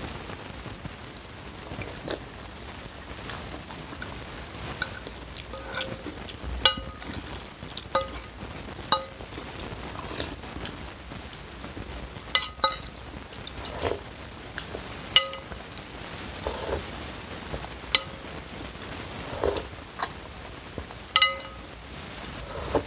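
Metal fork and spoon clinking against a ceramic bowl of noodle soup, irregular sharp clinks that ring briefly. Between them come slurps of soup and noodles off the spoon, and chewing.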